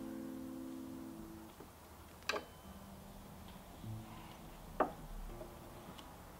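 The last chord of an acoustic guitar song ringing out and fading away over the first second or so. Then near quiet, broken twice by a sharp click and by faint low string sounds as the guitar is handled between songs.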